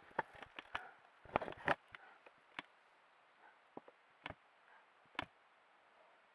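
Bear knocking and brushing against the camera housing: a quick run of clicks and knocks in the first couple of seconds, then a few single knocks spaced about a second apart.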